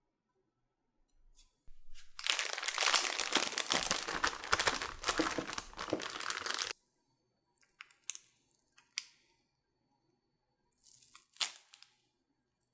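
Disposable plastic piping bag crinkling for about five seconds as thick choux pastry dough is scooped into it, followed by a few light ticks and a short rustle with a sharp click near the end.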